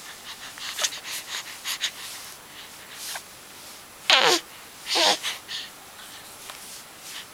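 A baby making mouth noises: a run of small wet clicks and sputters in the first two seconds, then two short, loud squeals about four and five seconds in, the first dropping in pitch.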